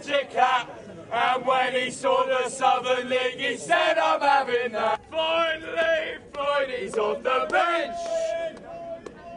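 Football supporters chanting a terrace song, men's voices singing together in short repeated phrases.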